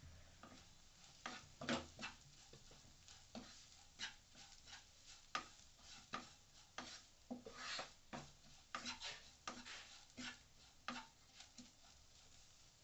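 A wooden spatula stirring and scraping fried onions and ground spices around a non-stick pan: a faint, irregular run of soft taps and scrapes.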